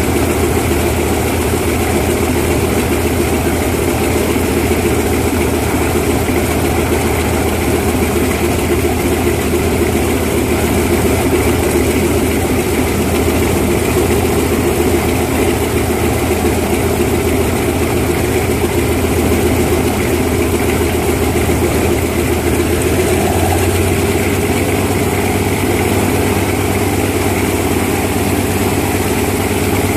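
Antonov An-2's nine-cylinder Shvetsov ASh-62 radial engine idling steadily with its four-blade propeller turning. The engine note shifts slightly about two-thirds of the way through.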